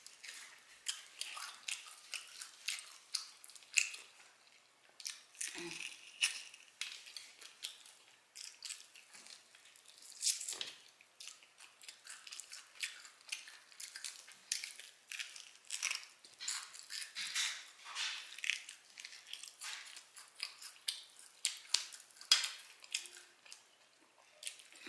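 Close-up chewing of barbecue ribs and fried chicken: a steady run of wet smacking and crunching mouth clicks, irregular and quick, with no pauses longer than a second or so.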